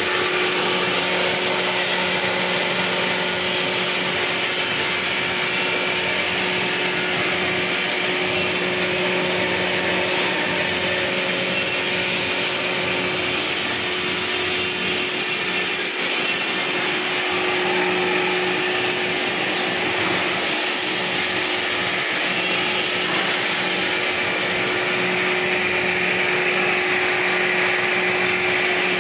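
Small floating fish feed extruder running steadily under its electric motor, a constant hum over an even rushing, grinding noise as it turns out pellets.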